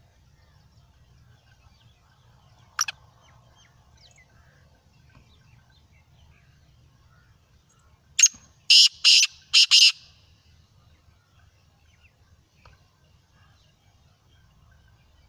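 Black francolin calling: a single short note about three seconds in, then near the middle a loud phrase of about five clipped notes, the first short and the rest longer.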